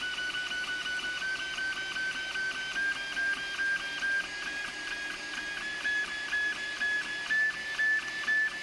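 3D printer stepper motors whining in short repeated tones as the print head runs back and forth across the print. The pitch steps gradually upward: the print speed is being raised as the flow-based temperature script changes the hotend temperature.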